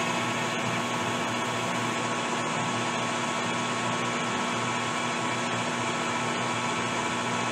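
Metal lathe running steadily with its four-jaw chuck spinning, making a steady hum while the tool takes a light facing cut of about five thousandths on a stainless steel rifle barrel's tenon shoulder.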